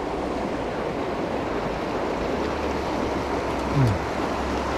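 Steady rush of river water running over rocks and riffles. Near the end comes a brief low vocal grunt that falls in pitch.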